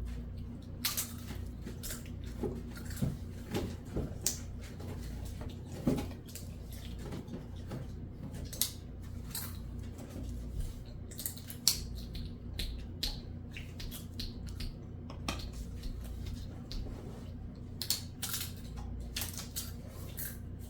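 Scattered small clicks, taps and rustles of small objects being handled on a table, over a steady low hum.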